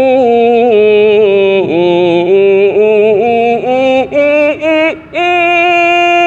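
A man singing the vowel "ee" as a head-voice training drill: a wavering line with vibrato, then a run of short repeated notes, then one long held note from about five seconds in. It is a slide up from the low register that has only reached the middle register.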